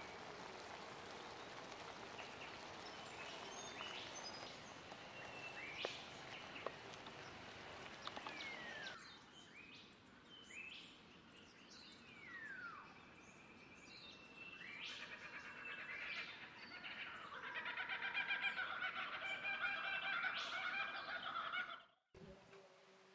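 A steady hiss from a pan of sauce simmering on a gas canister stove, with birds calling over it, stops about nine seconds in. After that birds call with several falling whistles, then a fast run of chirps near the end, until the sound cuts off suddenly.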